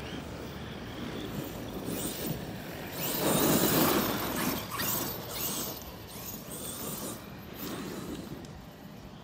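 Electric RC car driving past over grass and dirt, its drivetrain running with a mechanical, gear-like rasp. Loudest about three seconds in as it passes close, throwing up dirt, then it fades away with a few smaller swells.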